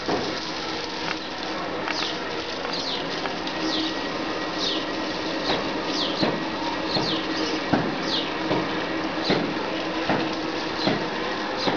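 Garden hose spraying water with a steady hiss, while a bird gives short, high, falling chirps about once a second from about two seconds in.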